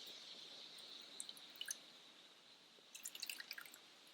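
Faint small clicks and drips as a bottle of Kamotsuru sake is handled and poured into a cup, with a cluster of little ticks near the end.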